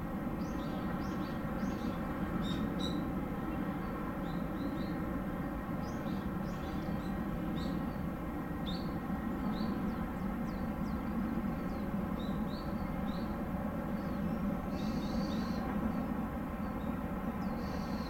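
A large ship's engines running with a steady low drone of evenly spaced tones, while small birds chirp in short high calls over it again and again.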